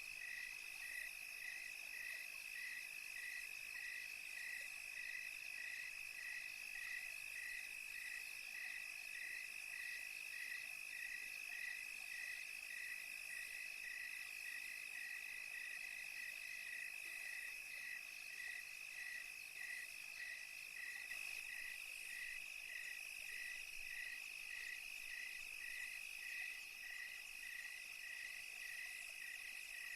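Night chorus of crickets and other insects: one steady high trill, with a second caller chirping at an even rate of about three chirps every two seconds.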